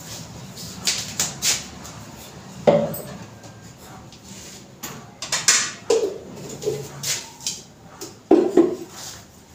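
Kitchen dishes and utensils clattering: a scattered run of sharp clinks and knocks, one short scrape about halfway through, and a loud double knock near the end.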